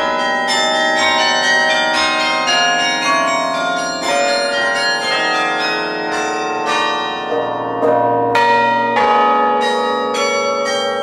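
Carillon bells being played: many bronze bells struck in quick succession, a melody of overlapping notes, each ringing on and fading under the next. A few heavier strikes stand out about 4, 7 and 10 seconds in.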